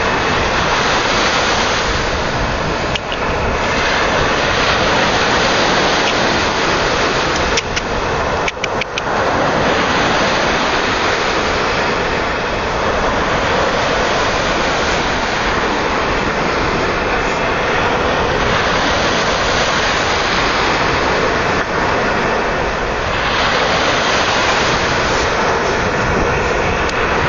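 Strong wind buffeting the microphone, mixed with the steady rush of surf, with a few brief clicks about eight seconds in.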